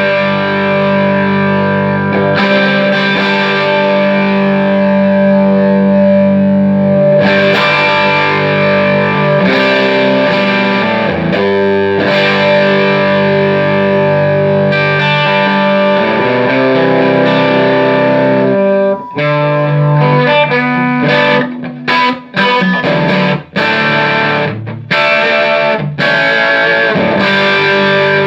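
Electric guitar played through a Fender '57 Custom Tweed amplifier with a distorted tone: long ringing chords, then, about two-thirds in, short choppy strums with brief gaps between them. The amp has been freshly recapped, its leaking preamp and phase-inverter coupling capacitors replaced with new Mallorys.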